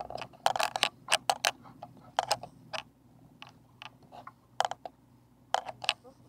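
Irregular sharp clicks and knocks, some in quick runs of two or three, from a fishing reel and tackle being worked while fighting a hooked fish.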